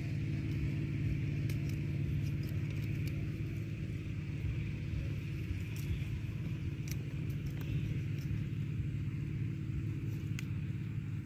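A steady low engine hum, unchanging throughout, with a few faint clicks over it.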